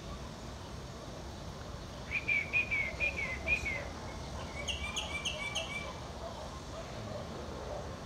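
Myna calling: a quick run of about six short notes about two seconds in, then a phrase of four higher notes about a second later, over low steady background noise.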